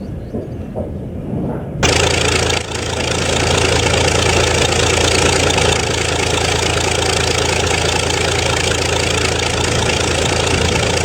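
Small snowblower engine running steadily, switching on abruptly about two seconds in.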